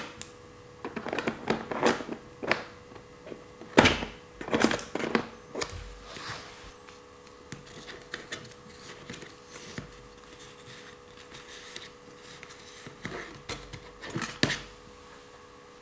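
Scattered hard clicks and knocks of a plastic toy being handled, the loudest knock about four seconds in and a few more near the end, over a faint steady hum.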